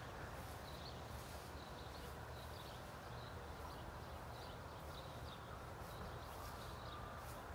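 Quiet outdoor ambience: a steady low hiss with faint, irregularly repeated high chirps.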